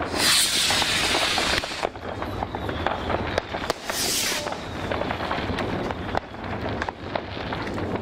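New Year's fireworks going off across a town: a continual scatter of pops and bangs from rockets and firecrackers, with a long hiss from just after the start to nearly two seconds in and a shorter hiss about four seconds in.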